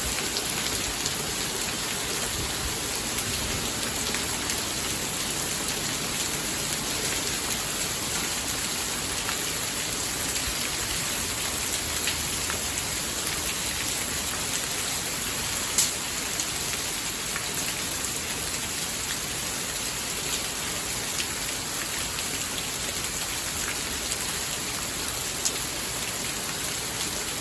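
Steady rain falling: an even hiss with occasional sharper drop hits, the loudest a little past halfway.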